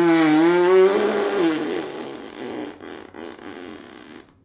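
A young child blowing a raspberry with her tongue between her lips, a mock fart: a loud, wavering buzz for the first second, trailing off into a rougher, fading sputter over the next second and a half.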